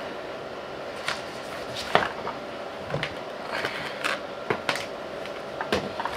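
Scattered, irregular clicks and knocks of a mechanical gaming keyboard and its cable being handled while it is connected.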